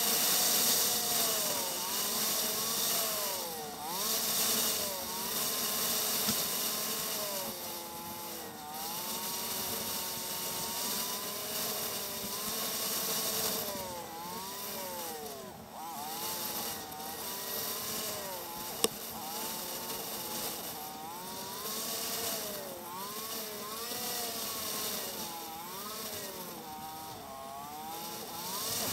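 Motorcycle engine running under way, its pitch rising and falling again and again as the throttle opens and closes through the bends, with a steady rush of wind over the camera microphone. A single sharp click about two-thirds of the way through.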